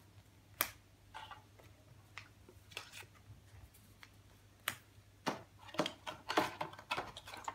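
Trading cards and plastic card sleeves being handled as cards are sleeved: a series of light clicks and rustles, scattered at first and coming closer together in the last few seconds.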